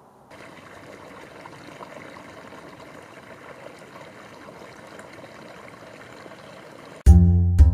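Steady hiss of flowing river water. Near the end, loud music with a driving beat and percussion cuts in suddenly.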